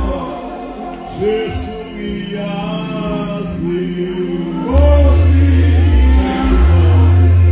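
Live gospel worship singing: male voices with others joining, sung slowly with wavering, held notes. A deep sustained bass drops out at first and comes back loud just under five seconds in.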